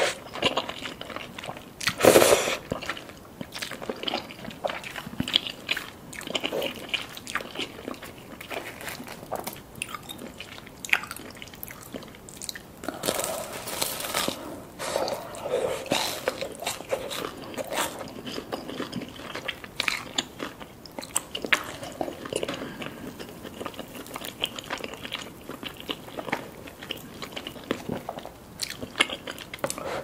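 Close-miked eating: slurping and chewing Samyang carbonara noodles, then biting into and chewing crisp-crusted fried mozzarella cheese balls. It is a steady run of small wet clicks and crunches, loudest about two seconds in.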